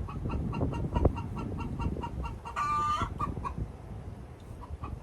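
Chickens clucking: a quick, even run of short notes, about five a second, with one louder drawn-out call a little past halfway. The clucking pauses briefly near the end, then starts again over a low rumbling noise.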